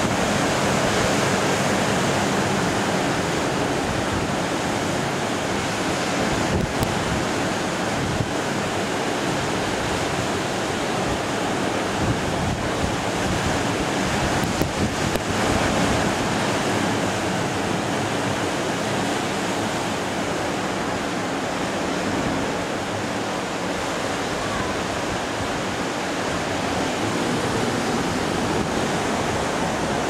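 Caribbean Sea surf breaking and washing onto the shore: a steady rushing of large breakers and foam.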